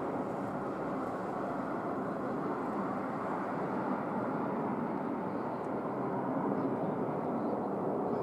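Airbus A320 jet engines: a steady jet rush that grows slightly louder near the end.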